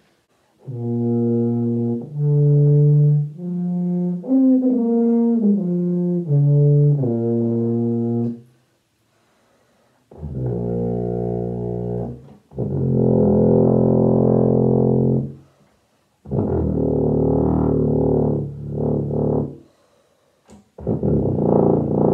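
Tuba played with a fabric drawstring cover stretched over its bell. It plays a run of stepped notes up and back down a scale, then after a short pause several long, lower notes with gaps between them.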